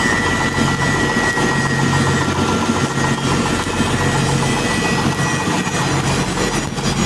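Heavy diesel engine running steadily at idle, with a constant hiss over it.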